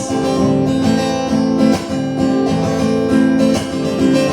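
Acoustic guitar strumming chords in a short passage without singing.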